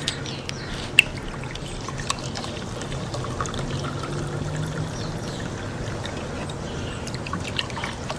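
Warm bottled apricot soda water being poured from a bottle into glasses: a steady hissing pour, with sharp clinks of glass near the start, the loudest about a second in.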